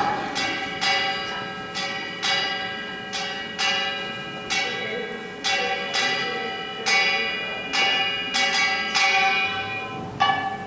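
Kkwaenggwari, the small Korean brass hand gongs of samul nori, struck one stroke at a time at a slow, uneven pace, about fifteen times. Each clang rings on bright and metallic before the next.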